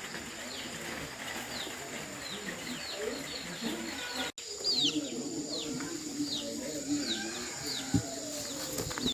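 Birds chirping: short, falling chirps repeated about twice a second over a low, wavering murmur, with a brief dropout a little past four seconds in and a short knock near the end.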